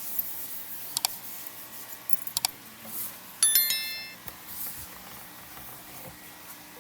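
A few sharp clicks, then a brief bright metallic jingle of ringing tones about halfway through, like keys on a ring being handled.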